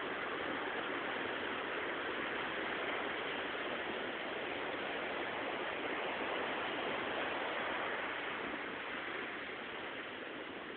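Sea waves washing on the shore: a steady rush of surf that eases a little near the end.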